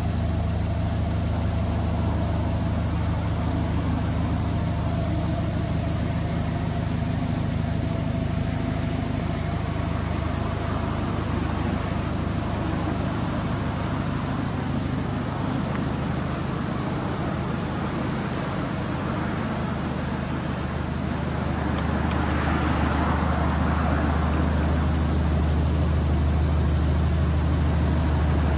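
Subaru Impreza WRX STI (GRB) turbocharged flat-four idling steadily through an aftermarket exhaust. A single click comes about three-quarters of the way through, after which the idle sounds a little louder.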